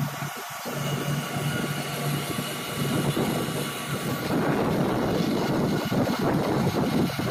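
A large engine running steadily with a low hum, joined about four seconds in by a louder, rougher rushing noise.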